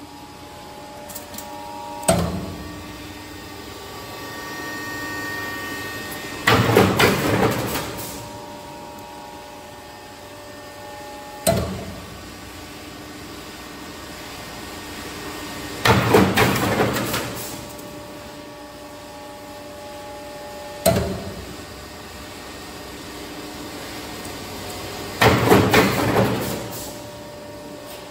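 Ceiling main-tee T-bar roll forming line running with a steady hum. A sharp bang comes three times, about every nine and a half seconds, and each is followed about four seconds later by a loud, rattling burst of about a second and a half, a regular cycle of the machine's hydraulic punching and cutting.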